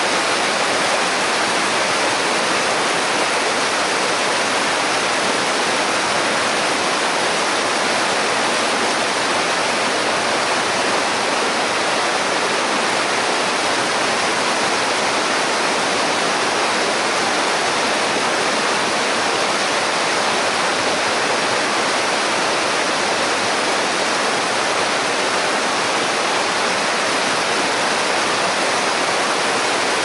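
Waterfall and stream water cascading over boulders, a steady, unbroken rush of water.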